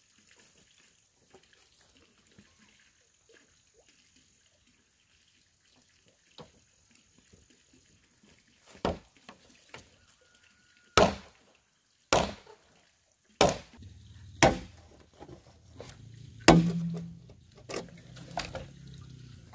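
Machete chopping into a green bamboo pole: a series of sharp strikes, roughly one a second, starting about halfway through. A low hum runs under the later strikes.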